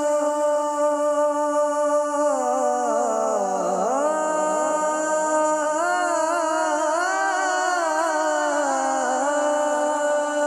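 A man singing a naat, drawing out long wordless notes with melismatic ornaments. The pitch sinks a few seconds in and then rises again.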